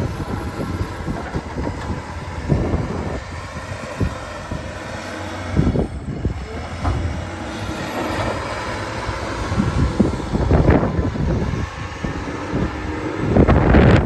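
A large engine running steadily, with irregular knocks and rattles over the rumble.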